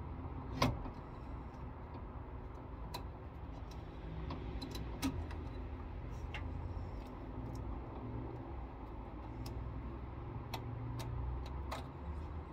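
Light metallic knocks and clicks of a new brass radiator being lowered and fitted into a Morris Minor's engine bay, knocking against the front panel. The sharpest knock comes about half a second in, then scattered lighter taps, over a steady low rumble.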